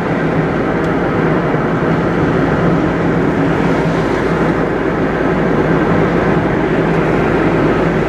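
Car driving on an open road with a side window rolled down: a steady rush of wind and tyre noise over the engine's low hum.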